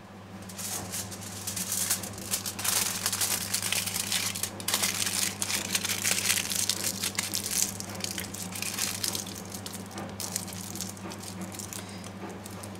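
Aluminium foil crinkling and crackling as it is folded and crumpled by hand around a frozen vegetable stock cube. It starts about half a second in and thins out near the end.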